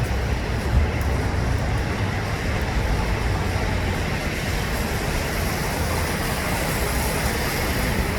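Steady city street noise: a continuous low rumble and hiss of traffic.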